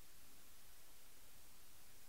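Faint steady hiss of room tone, with no distinct sound.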